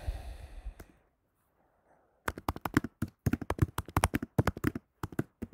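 Typing on a computer keyboard: a fast, uneven run of key clicks that starts a little past two seconds in.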